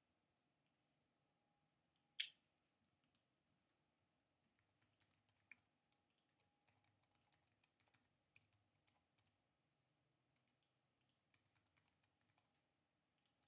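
Faint computer keyboard typing: irregular key clicks, with one sharper click about two seconds in.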